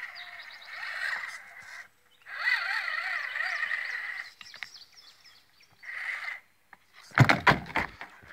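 ECX Barrage Gen2 RC crawler's electric motor and geartrain whining in two long throttle bursts and a short one as it climbs a car windshield, the pitch wavering with the load. About seven seconds in comes a burst of loud knocks and handling noise.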